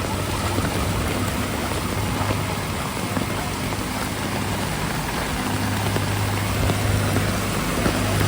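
Heavy rain falling steadily, with a vehicle engine idling under it; the engine's low hum grows louder about five and a half seconds in.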